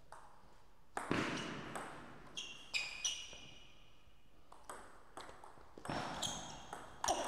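Celluloid-style table tennis ball being struck by rubber paddles and bouncing on the table in a rally. It gives a string of sharp clicks with a short ringing ping and a hall echo, in two clusters, one about a second in and another from around five seconds.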